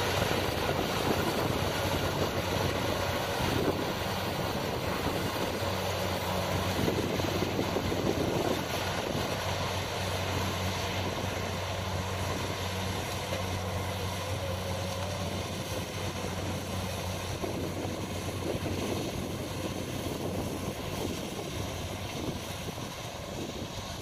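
Kubota DC-70 combine harvester's diesel engine running steadily as it cuts rice: a continuous low drone that fades slowly as the machine moves away.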